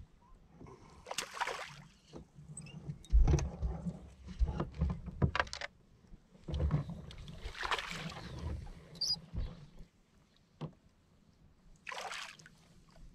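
Handling noise on a fishing boat: irregular knocks and low thumps with rustling, loudest in two spells, one from about three seconds in and one towards eight seconds.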